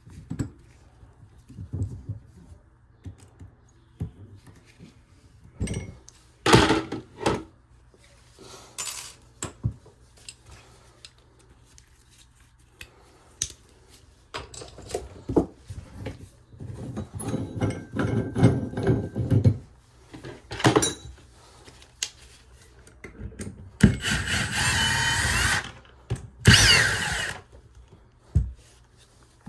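Power drill/driver run in short bursts, the longest about two seconds near the end, among clicks and knocks of tools and parts being handled.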